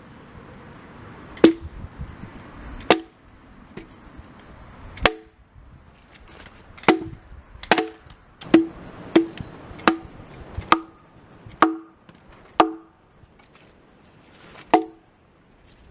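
Hatchet chopping into wood: about a dozen sharp chops at uneven intervals, from half a second to two seconds apart, each with a short hollow ring.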